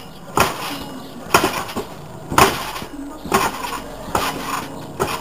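A garden trampoline being bounced on: the mat and its springs give a sharp thump and metallic clank with each landing, about once a second.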